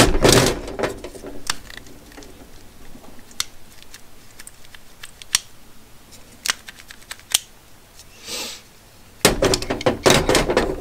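Plastic spring clamps clacking as they are handled and set down on a hard surface: scattered sharp clicks, with a loud clatter at the start and a dense run of clattering near the end.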